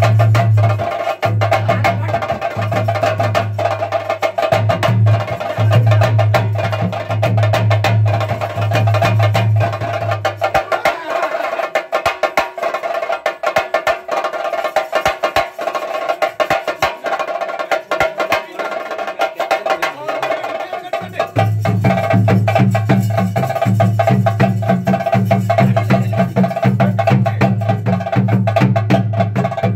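Ritual drumming of the kind that accompanies a Theyyam dance, most likely chenda drums, beaten fast and without a break, with a steady higher tone held above it. A deep low hum under the drums stops about a third of the way through and comes back about two-thirds in.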